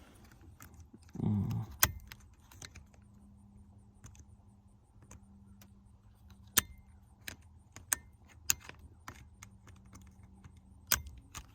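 Scattered sharp clicks and light taps of a screwdriver working against a stuck push-down plastic retaining clip inside a steering wheel, coming at irregular intervals.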